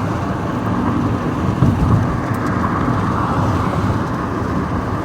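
A passing train: a steady low rumbling noise with no horn sounding.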